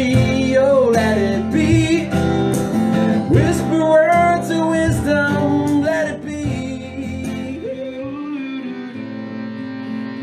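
A man singing with a strummed steel-string acoustic guitar. About three-quarters of the way through, the voice and strumming stop and a softer, plucked nylon-string classical guitar takes over.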